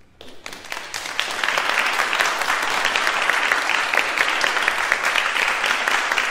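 Audience applauding: scattered claps build up over the first second or so into steady, dense clapping.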